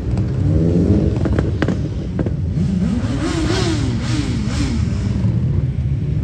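2016 BMW S1000RR's inline-four engine through an SC-Project exhaust, accelerating away with the revs rising and falling several times as it goes through the gears. A few sharp pops come in the first two seconds, and near the end it settles into a steadier, lower drone.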